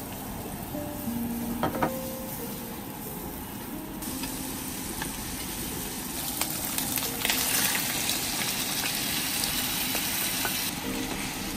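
Garlic and diced ham sizzling in oil in a nonstick frying pan, stirred with a wooden spatula. The sizzle gets louder about four seconds in and again past the middle as more food goes into the hot pan.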